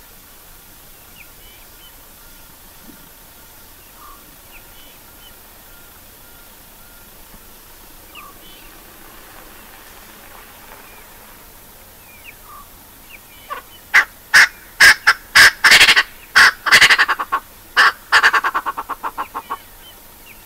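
A bird calling loudly: a series of pitched notes that starts about two-thirds of the way in, then quickens into a rapid run and fades out near the end.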